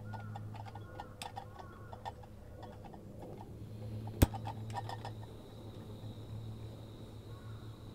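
Light ticks and clicks in a loose string, with one sharp, much louder click about four seconds in, over a low steady hum.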